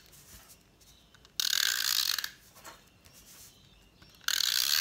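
Snail adhesive tape runner drawn across cardstock in two strokes of about a second each, the first about a second and a half in and the second near the end, laying a line of glue dots.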